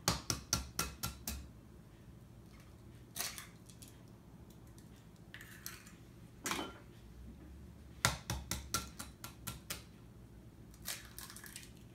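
Wire whisk clinking against a glass mixing bowl in two quick runs of strokes, with a few single knocks between as eggs are cracked on the bowl for the cake batter.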